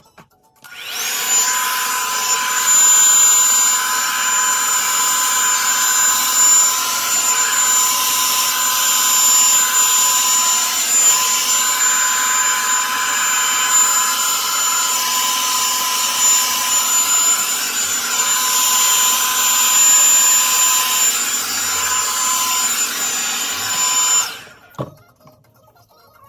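Revlon One-Step Volumizer hot-air brush dryer running: a steady rush of air with a high motor whine, switched on about a second in and off shortly before the end.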